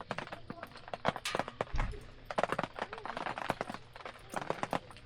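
Wood fire crackling and popping in irregular sharp snaps, with a brief low thump just before two seconds in.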